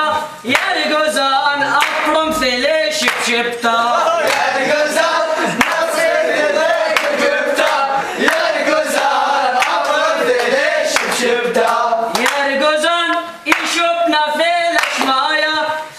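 A group of men singing together, with hand claps keeping the beat.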